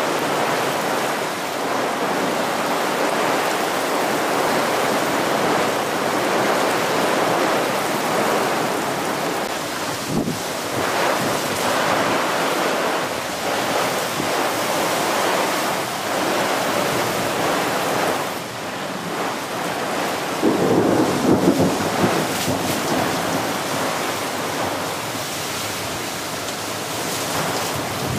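Heavy thunderstorm downpour: rain hissing steadily on trees, lawn and an awning. About twenty seconds in, a louder rumble of thunder rises over the rain for a couple of seconds.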